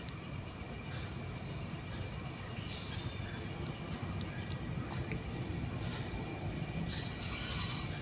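Faint clicks and light rattling of a stand fan's wire front grille being fitted by hand, with a brief rustle near the end, over a steady high-pitched whine.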